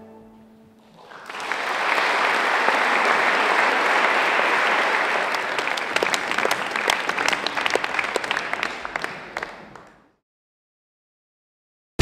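Audience applauding in a hall: the clapping swells about a second in, holds steady, then thins to scattered individual claps and fades out.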